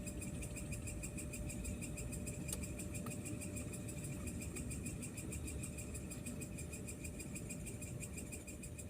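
Forest insects, such as crickets, chirring steadily in rapid pulses at two pitches, a higher and a lower one, over a low rumble. A single faint tick comes about two and a half seconds in.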